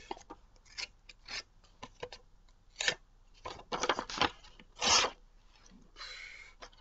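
Serrated knife blade cutting through a sheet of paper in several short, irregular strokes, the loudest about five seconds in.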